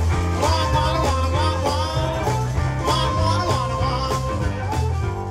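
Live band playing an upbeat rock-and-roll style song: vocals over hollow-body electric guitar, drums and harmonica, with long held harmonica notes over a steady drum beat.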